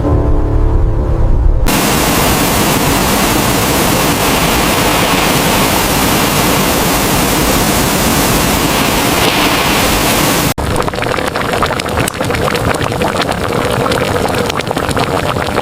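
Loud, steady rushing blizzard wind. About ten seconds in it cuts abruptly to rougher, gusting wind with fine crackling through it.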